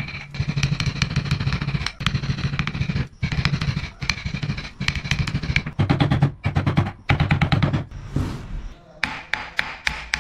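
A wooden mallet rapidly striking a chisel to cut into a wooden carving, in runs of sharp knocks several a second with brief pauses. There is a longer lull about eight seconds in. A steady low hum lies underneath.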